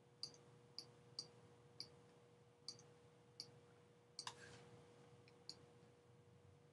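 Near silence with a faint steady hum, broken by about ten small sharp clicks at irregular intervals, a close pair of them a little louder just past four seconds in.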